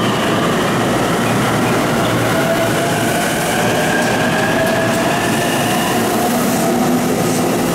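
JR East Tokaido Line electric commuter train running along the station platform: a loud, steady rumble of wheels on the rails with a whining motor tone over it.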